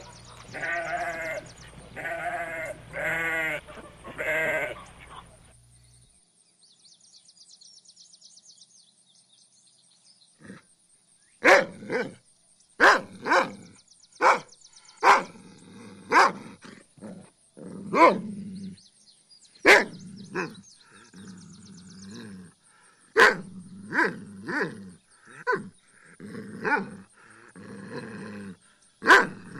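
A goat bleating four times in the first few seconds. After a short lull, a dog barks repeatedly in single short barks at irregular intervals.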